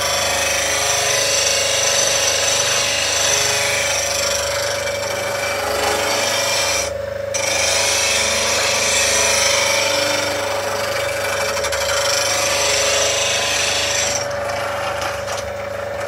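Axminster Trade slow-speed bench grinder running with a steady hum while a steel woodturning tool held in a sharpening jig is ground against its wheel, giving a steady rasping hiss. The grinding pauses briefly about halfway through as the tool comes off the wheel, and stops near the end while the wheel keeps spinning.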